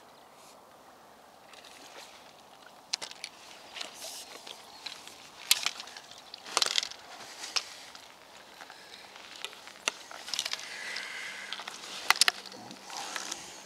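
Irregular sharp knocks and clicks with rustling from a fishing pole and landing net being handled as a fish is netted and unhooked.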